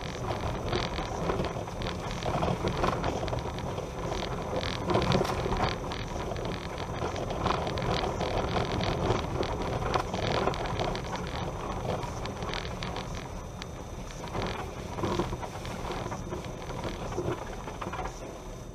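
A vehicle travelling over an unpaved dirt road: a steady rumble of tyres on the rough surface, with frequent small rattles and clicks.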